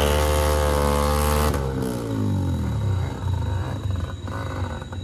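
Engine revved hard and held at high pitch for about a second and a half, then falling away to a lower, rougher running, as the vehicles work through deep mud.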